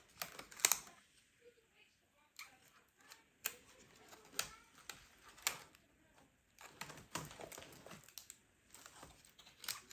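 Irregular plastic clicks and rattles from a Dell Latitude D610 laptop keyboard being handled as it is worked loose and lifted out, with the sharpest click about half a second in.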